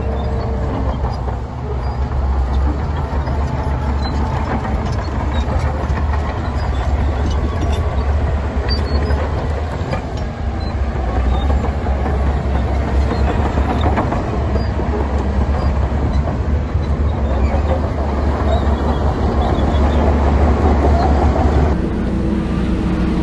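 Heavy diesel earthmoving machinery running steadily: a deep engine rumble with continuous clattering. The sound changes abruptly near the end.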